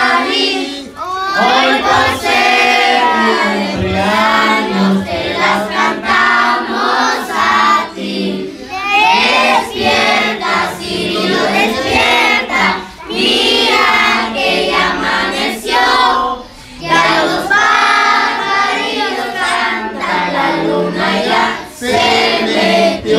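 A group of children and adults singing a birthday song together.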